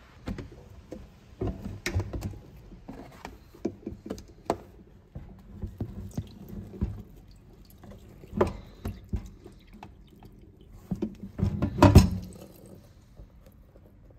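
Plastic parts of a robot mop being handled: irregular clicks and knocks, with some liquid sounds, the loudest knock about twelve seconds in.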